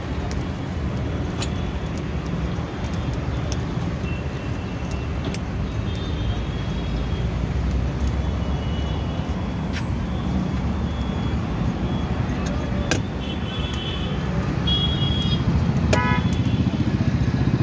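Steady rumble of street traffic, with several short high vehicle-horn toots in the second half and a few sharp clicks.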